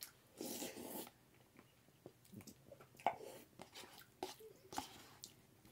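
Faint eating sounds from a cup of instant noodles: a short breathy rush about half a second in, then chewing and a few light clicks of a fork against the cup.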